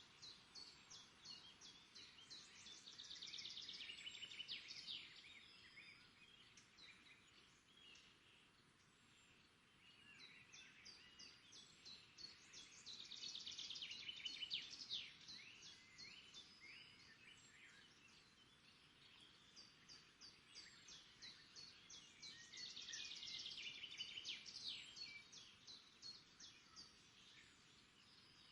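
Songbirds singing. A quick, high run of chirps with falling sweeps swells up three times, about ten seconds apart, with quieter chirping in between.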